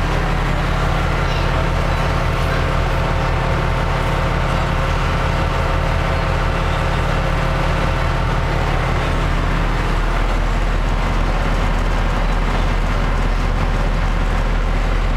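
Sea Bass water bus's engines running while under way, a loud, steady low drone heard from inside the passenger cabin; the low hum shifts in pattern about two-thirds of the way through.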